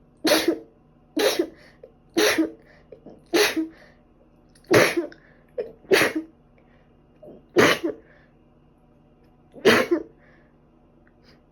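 A fit of repeated sneezing, about eight sharp sneezes. The first few come about a second apart, then the gaps grow longer, with a runny nose behind them.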